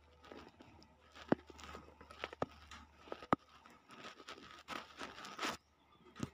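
Faint rustling of fabric with a few sharp clicks, about three in the first half, as a kitten kneads a cloth-covered lap with its front paws and its claws catch on the fabric.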